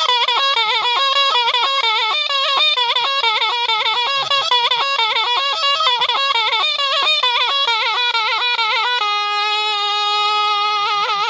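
A solo wind instrument, reedy and unaccompanied, plays a fast melody full of quick trills and turns. About nine seconds in it holds one long steady note, then goes back to the ornamented line.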